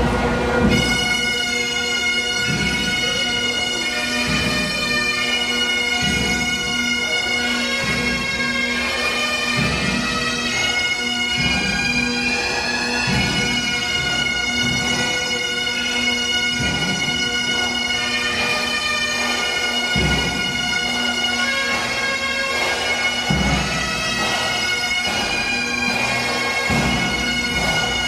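Bagpipes playing a slow tune over their steady drone, with a bass drum beating slowly about every two seconds.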